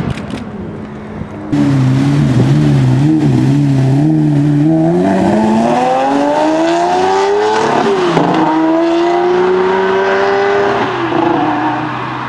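Supercar engine accelerating hard: after a brief wavering, its pitch climbs steeply, drops sharply in a quick upshift about eight seconds in, then climbs again before easing off near the end. A different, quieter car sound cuts off abruptly about a second and a half in.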